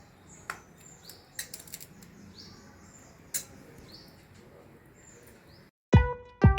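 Faint, repeated high chirps of small birds and a few light clicks over quiet room noise. About six seconds in, a louder outro jingle starts abruptly, with bright bell-like tones and hits.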